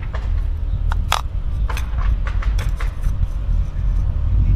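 A flathead screwdriver scraping and clicking against a Dodge Charger's plastic oil filter housing cap as the rubber seal band is pried off, a handful of short sharp clicks between about one and three seconds in. A low steady rumble lies underneath.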